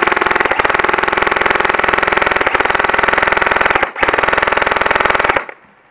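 Airsoft rifle firing on full auto, a fast even stream of shots: one long burst of about four seconds, a split-second break, then a shorter burst that stops shortly before the end.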